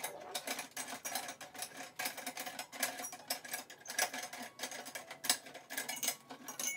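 Rapid, irregular clicking and rattling of metal parts as the lid on top of a gumball machine's globe is twisted and handled.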